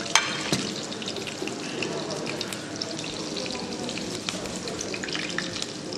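Potato pancakes shallow-frying in hot oil in a pan: a steady sizzle with constant small crackles, and one sharp click just after the start.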